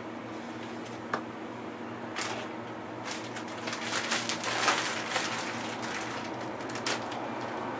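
Clicks and rustling from handling a laptop while powering it on, thickest in the middle, over a steady low hum.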